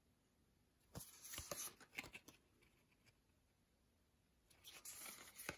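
Faint rustling and light clicks of stiff game cards being handled and swapped between the hands, about a second in and again near the end, with near silence between.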